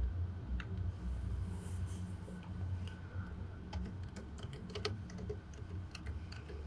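Key presses on a slim low-profile keyboard with rubber-dome membrane switches: a few scattered presses, then a quick run of soft clicks of keys pressed one after another through the middle.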